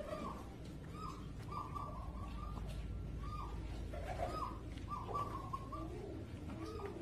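Fancy pigeons cooing: a string of short, arched calls, repeated about once or twice a second, with lower, deeper coos joining in the second half.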